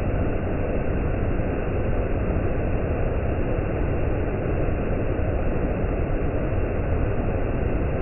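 Waterfall pouring in high flow over rock ledges: a steady, deep rush of water with no breaks.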